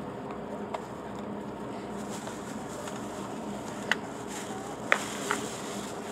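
Outdoor ballpark ambience: steady background noise with a few short, sharp clicks in the second half.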